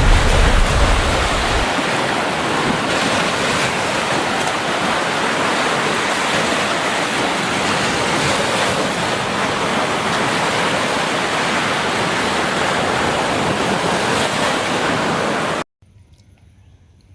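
Steady, loud rushing noise with no distinct events, with a deep rumble under it for the first second or so; it cuts off suddenly near the end.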